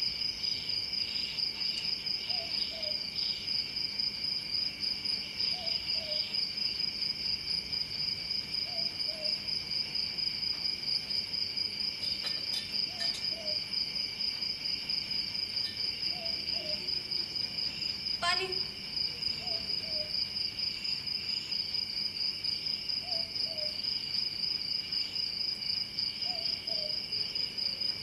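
Night ambience sound effect of crickets chirring steadily in a fast, even pulse, with a soft double hoot every few seconds. One brief rising squeak comes about two-thirds of the way through.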